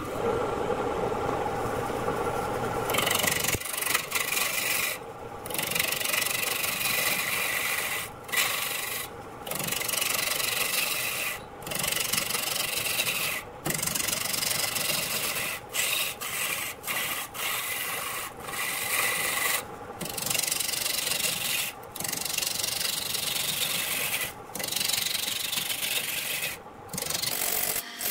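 A gouge rough-turns a spinning log blank on a wood lathe, giving a continuous scraping, shaving cut that drops out briefly every second or two as the tool is lifted and re-set between passes. For the first few seconds only the lathe is heard spinning before the tool bites.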